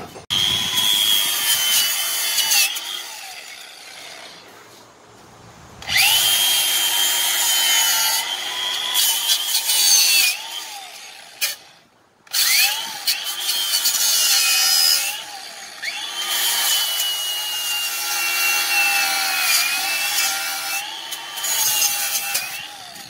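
Cordless power tool scouring rust off a car's brake hub and rotor: a high motor whine over a scraping rasp, in four long runs with short pauses between them, the pitch sagging each time it is pressed against the metal.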